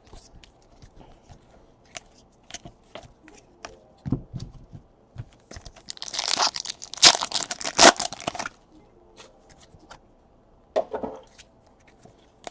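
Light clicks and slides of trading cards being flicked through in the hand, then about six seconds in a foil card-pack wrapper is torn open and crinkled loudly for about two and a half seconds, with a smaller rustle near the end.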